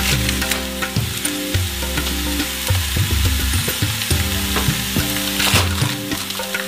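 Razor clams sizzling in a frying pan as they are cooked down into tsukudani, with light clicks of stirring, over background music.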